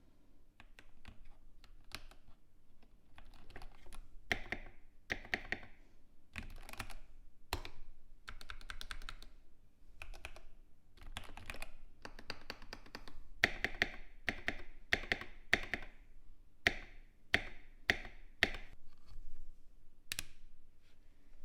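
Keystrokes on a Keychron K8 Pro aluminium mechanical keyboard with Gateron G Pro Red linear switches, typed in irregular runs of clicks with short pauses between them.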